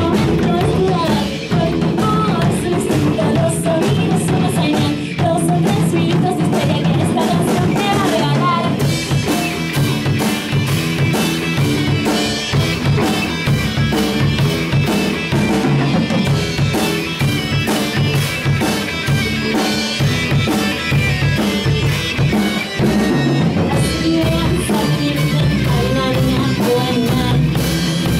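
Rock band playing live: electric guitar lead lines over a drum kit. The drumming becomes denser and fuller about nine seconds in.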